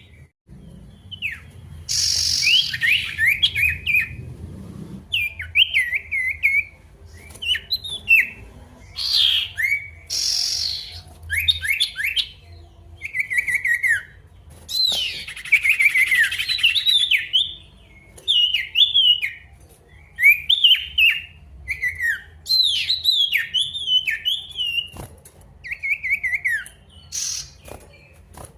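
Male sirtu in full song, a lively challenge call: phrase after phrase of quick, down-slurred chirps with a few harsher, hissy bursts mixed in.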